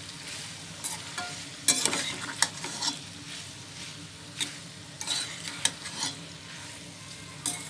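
A spatula stirring shell pasta into fried masala in a stainless steel pot, with irregular sharp scrapes and knocks against the pot over a steady frying sizzle.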